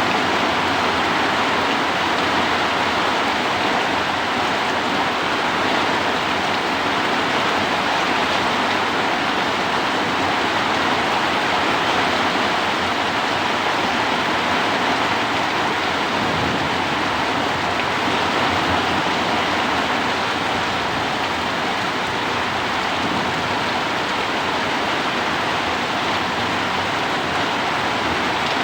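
Heavy rain falling steadily with strong wind, a dense, even hiss with no breaks.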